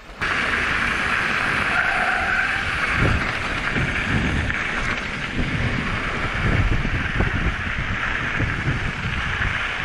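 Mountain bike rolling fast along a dirt track: steady tyre and wind noise on the microphone, with irregular low thumps and rattles as the bike goes over bumps.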